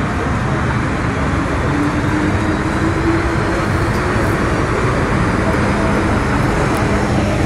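Steady, loud rumble of a metro station, with train running noise.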